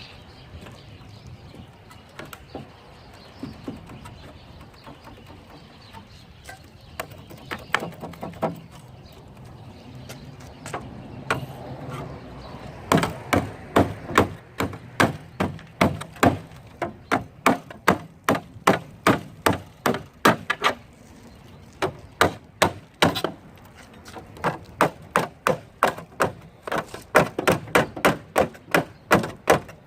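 Repeated hammer blows, a few scattered knocks at first, then quick runs of strikes at about two to three a second with short pauses between runs.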